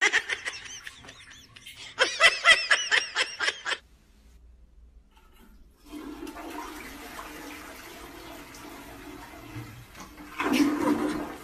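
Toilet flushing: water rushes steadily for about five seconds from halfway in and swells near the end. Before it comes a run of quick high chirping sounds.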